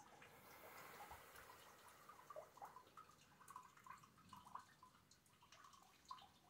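Faint, irregular drips of rainwater falling during a thunderstorm, with a soft hiss of rain swelling briefly near the start.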